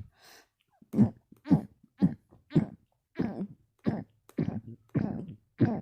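A person burping with the mouth closed: a quick run of about ten short burps, roughly two a second, starting about a second in.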